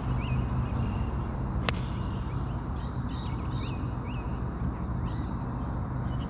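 A single sharp click of a golf club striking the ball off the tee, about two seconds in. Birds chirp repeatedly over a steady low rumble.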